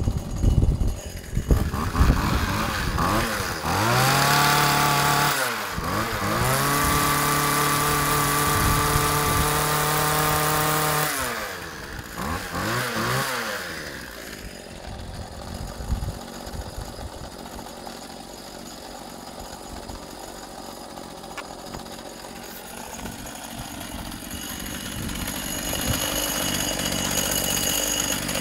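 McCulloch Virginia MH542P petrol hedge trimmer's small two-stroke engine sputtering into life, then revved up to a high steady pitch twice, the second time held for about five seconds. After a short blip of the throttle it drops back and idles.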